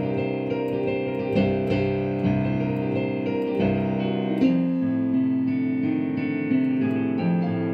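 Digital piano playing a boogie-woogie variation in C with both hands: a rolling left-hand bass under right-hand chords, one of the many variations on the pattern.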